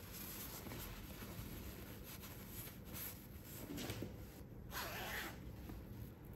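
Synthetic cycling jersey fabric rustling and swishing as hands unfold and smooth it, with two louder swishes about four and five seconds in.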